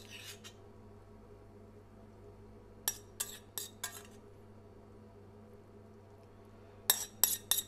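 Metal spoon clinking against a small saucepan and the plate while creamed cabbage is spooned out: a run of four short clinks about three seconds in, and another quick run near the end, over a steady low hum.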